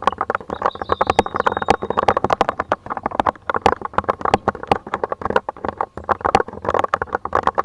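Typing on a Lofree tri-mode mechanical keyboard: a fast, continuous run of clacking keystrokes, several a second.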